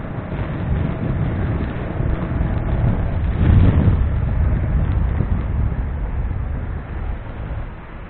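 Road noise from a moving motorcycle: wind rushing over the microphone mixed with engine and traffic noise, with a louder swell about three and a half seconds in.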